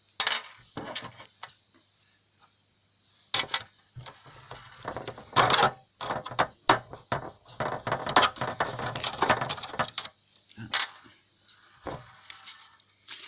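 Clicks, knocks and rattling of a plastic router case and its screws being handled as the screws are taken out and the case is opened, with a few sharper taps and a busy stretch of clatter in the middle.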